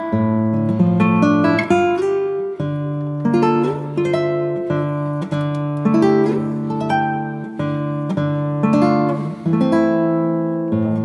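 Background music on plucked acoustic guitar, a run of single notes struck at an even pace.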